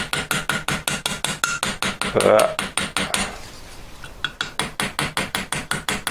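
Small jeweller's hammer tapping rapidly and lightly on the end of a silver hinge pin, about six taps a second, spreading the pin into a rivet head. A louder brief scraping sound comes a little over two seconds in, and the taps grow faint for about a second around the middle before picking up again.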